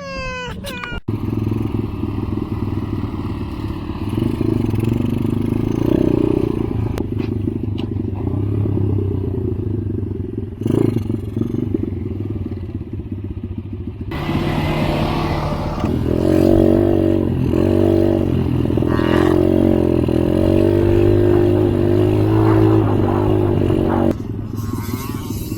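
Off-road engines running steadily, with a short rise in pitch at the start. About halfway through, a louder engine note begins that rises and falls repeatedly, like revving, then drops back near the end.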